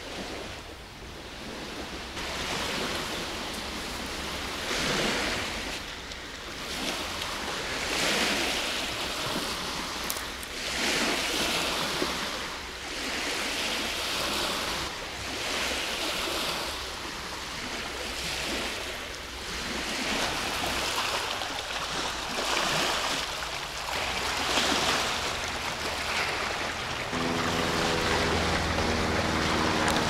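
Small waves washing onto a sandy, stony shore, the wash swelling and falling every two to three seconds, with some wind. Near the end the steady drone of a small light propeller aircraft overhead comes in.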